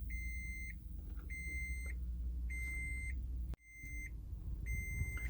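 Toyota Prius cabin warning chime beeping repeatedly, about five evenly spaced beeps a little over a second apart, over a low steady rumble that cuts out briefly a little past halfway.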